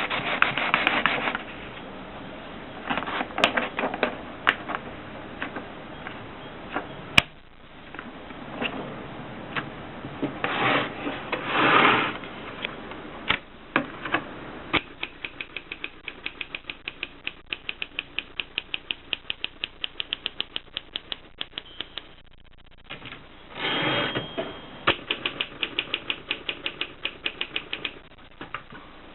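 Mercedes Selekta typewriter being worked: keys striking in steady runs of about three clicks a second, with a few single sharp clicks, and stretches of rubbing, sliding sound lasting about a second each in between.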